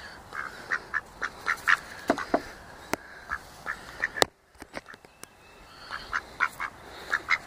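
Drake mallard duck giving a string of short calls, two or three a second, with a pause about halfway through. Two sharp clicks are heard just before the pause.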